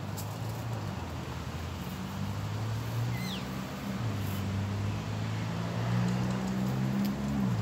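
A steady low engine-like hum whose pitch shifts in small steps and grows a little louder toward the end, with a brief faint high falling chirp about three seconds in.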